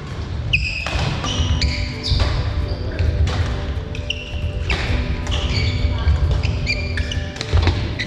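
A badminton doubles rally: court shoes squeaking in short, high chirps on the sports floor, feet thudding, and rackets striking the shuttlecock again and again.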